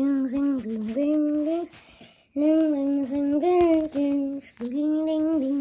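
A high voice singing a slow, simple tune in long held notes, in three phrases with short breaks about two seconds in and again before four and a half seconds; it sounds like a child singing.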